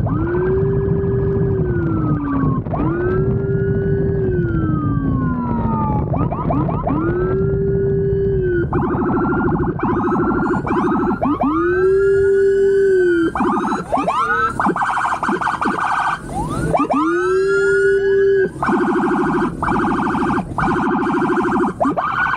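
Police motorcycle's electronic siren cycling through long wails that rise, hold and fall, then quicker whoops, broken by stretches of a harsh buzzing horn tone, over engine and road noise.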